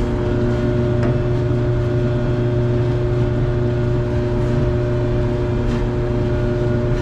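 Clothes dryer running with a steady, loud hum: a low drone with a few constant higher tones held over it, the humming noise under investigation.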